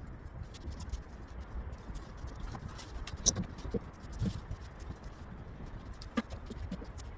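Scattered light knocks and clicks over a low rumble, the sharpest a little after three seconds in and again about six seconds in.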